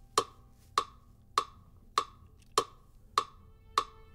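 Metronome ticking at a steady beat, about one and a half sharp clicks a second, seven in all.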